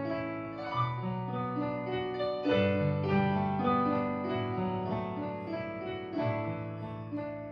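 Slow piano introduction to a song: chords and melody notes held and changing about every second, with no voice yet.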